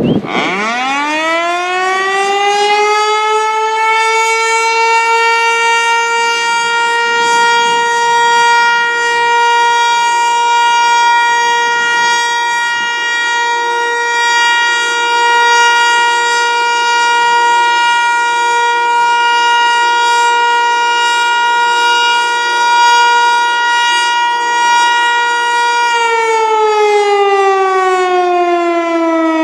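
Federal Signal Eclipse 8 outdoor warning siren sounding its test: it winds up to a steady single tone within the first few seconds, holds it, and begins winding down, falling in pitch, about three seconds before the end.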